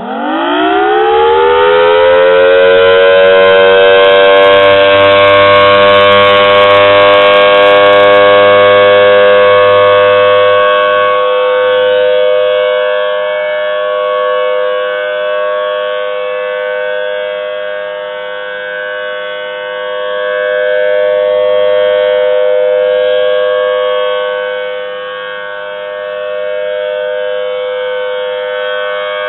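Federal Signal Thunderbolt 1000T supercharged outdoor warning siren winding up for its monthly test: the pitch climbs fast for about two seconds, then settles into one steady, loud tone rich in overtones. The tone slowly swells and fades as the rotating siren head turns toward and away from the listener.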